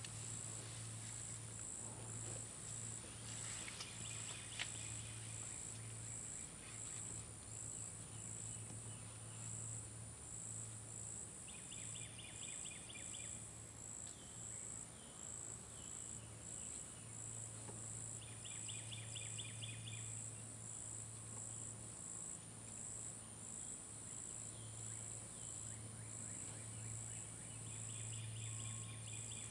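Insects chirping steadily in a high, even pulse about twice a second. A lower, faster trill comes in several times over a low steady hum.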